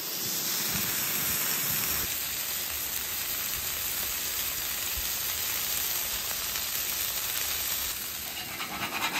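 Hamburger patties topped with cheese slices sizzling in their rendered fat on a Blackstone flat-top griddle: a steady frying hiss.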